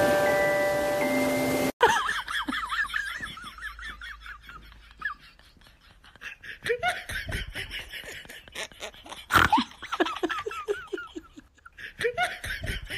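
Chiming mallet-percussion music that stops abruptly about two seconds in, followed by rapid, high-pitched laughter, with a single sharp click about nine seconds in.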